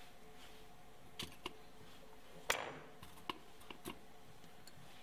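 Bell pepper quarters set down on a perforated stainless-steel folding steamer basket: several light taps and clicks of the pieces on the metal, with one louder metallic knock that rings briefly about halfway through, over a faint steady hum.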